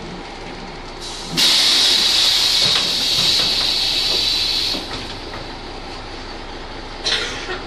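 Compressed air hissing from the Ikarus 280 articulated bus's pneumatic system: a loud hiss starts suddenly about a second and a half in and lasts some three seconds, then a second, shorter hiss comes near the end, over the bus's steady running noise.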